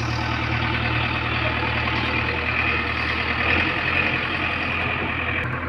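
Diesel engine of a JCB 3DX backhoe loader running steadily, with a shift in its low engine note about three and a half seconds in.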